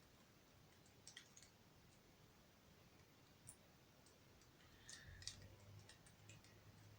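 Faint clicks of plastic Lego pieces being handled and pressed together: a few scattered clicks, then a quick cluster of them in the last two seconds, with a faint low hum coming in under the later ones.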